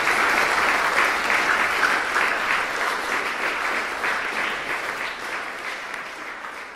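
Audience applauding with dense, steady clapping that gradually fades away.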